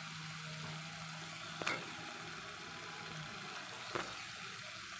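Mustard-coconut spice paste sizzling steadily in hot oil in a karai as fried whole brinjals are laid into it, with two short knocks, one just under two seconds in and one about four seconds in.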